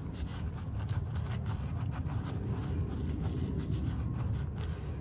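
Soft, faint scrapes of a silicone pastry brush spreading olive oil over a pita on a ceramic plate, over a steady low rumble.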